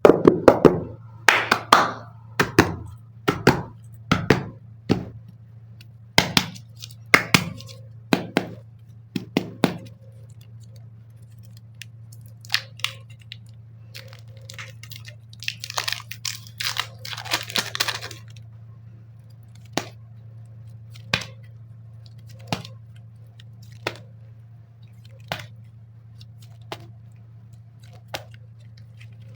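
Clay packaging being handled: a string of sharp clicks and taps, then a few seconds of crinkling and tearing of wrappers about halfway through. After that come single clicks, evenly spaced about a second and a half apart, over a low steady hum.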